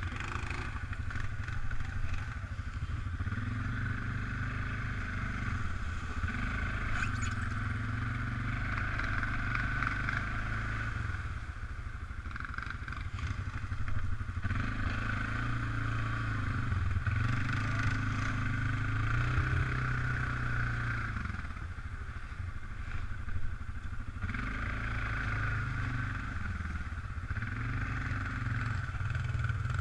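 Suzuki ATV engine running under the rider, its pitch rising and falling again and again as the throttle is opened and eased off over rough, wet trail, with a steady higher whine and a few brief rattles and knocks.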